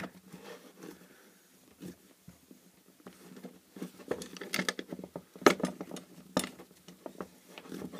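The plastic housing of a violet wand unit, clamped in a metal vise, handled and pressed while being prised apart: irregular small clicks, creaks and knocks of plastic, with the sharpest knocks about five and a half and six and a half seconds in.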